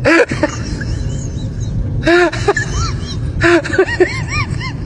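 A dog vocalizing in clusters of short, rising-and-falling whines and yips, over a low rumbly noise: one cluster about two seconds in, another about three and a half seconds in.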